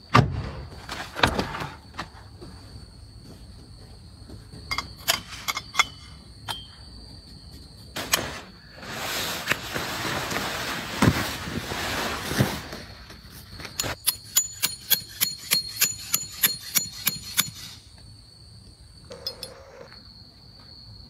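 A Jeep door shutting at the start, then a canvas tent being shaken out with a long rustle in the middle. Near the end a hammer drives a metal tent stake in a quick run of about a dozen ringing strikes, some four a second.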